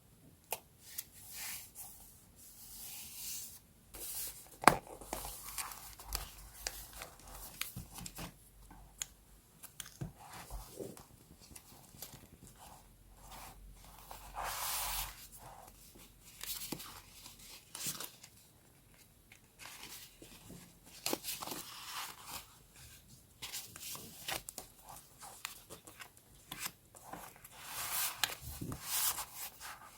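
Paper and sticker sounds from journal scrapbooking: short irregular strokes of paper tearing and rustling, the longest around halfway and near the end, with scattered light taps and clicks in between.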